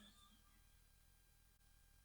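Near silence: faint room tone between takes.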